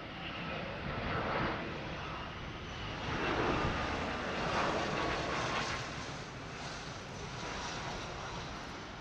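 Jet engine noise from a Dassault Falcon 8X business jet's three turbofans: a steady rush with a faint whine. It swells to its loudest around the middle and eases off near the end.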